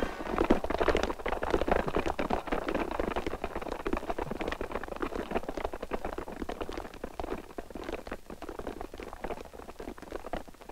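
Footsteps of a large column of men walking on a paved street, many overlapping steps, gradually growing fainter.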